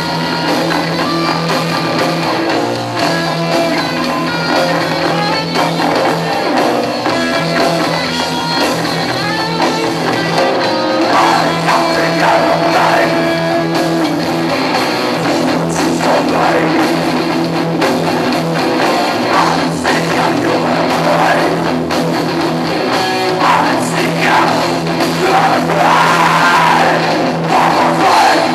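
Live rock band performing: distorted electric guitars, bass and drum kit with a singer, recorded from the audience in a small club.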